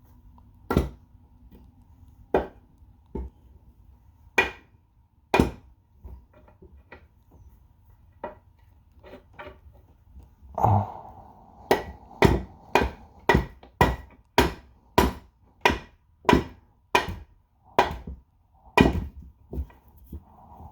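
Hammer blows driving a part into a 1960 Ford three-speed transmission during reassembly: a few scattered taps, then from about halfway a steady run of strikes about two a second.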